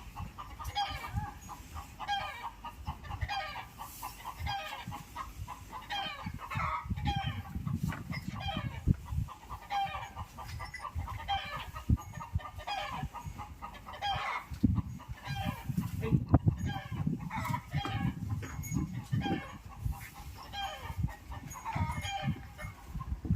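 A flock of chickens clucking and calling without pause, many short calls overlapping, over low knocking and rumbling.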